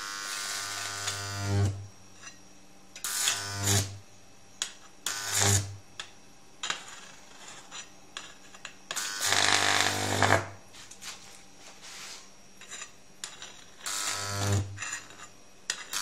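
1000 VA microwave oven transformer switched on in short bursts, buzzing with a deep mains hum each time, along with the crackle and sizzle of high-current arcing where its output wires touch. There are five bursts, each from half a second to about a second and a half long.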